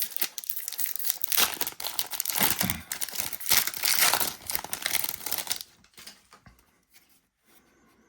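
Foil wrapper of a trading-card pack being crinkled and torn open, a dense crackling and ripping that stops about five and a half seconds in, followed by a few faint clicks of cards being handled.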